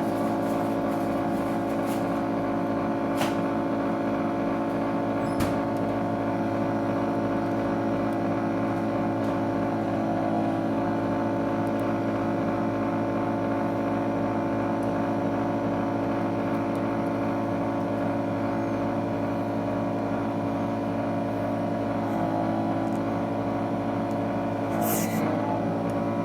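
Steady motor hum of a heated screen-separator machine's vacuum pump, running continuously while it holds the tablet glass down, with a few faint clicks.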